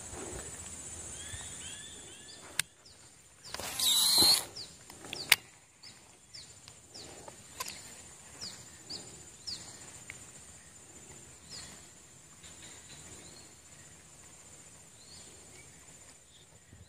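A lure cast with a casting rod and reel: a whoosh of about a second as the line pays out, about four seconds in, then a sharp click a second later. Short falling chirps repeat about twice a second for several seconds after, over a steady high insect-like hiss.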